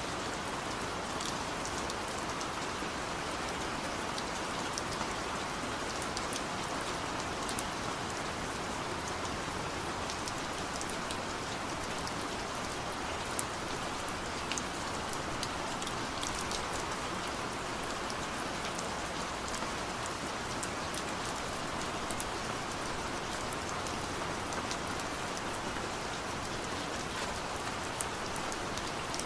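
Steady rain falling: an even hiss, with sharper drops ticking here and there.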